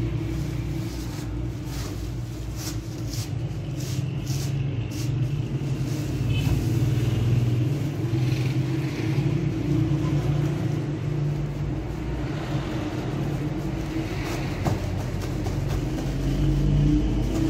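Large electric dough mixer running with a steady low hum, while flour is shaken from a sack into its bowl, with rustling of the sack now and then.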